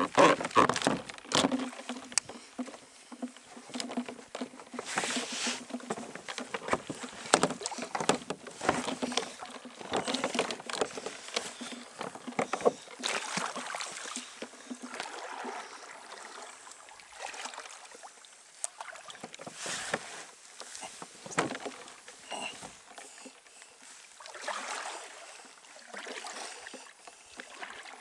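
Kayak paddling on flat water: the paddle blades dip and splash in an irregular rhythm, with small knocks and rustles from the boat. The sound is busiest in the first half.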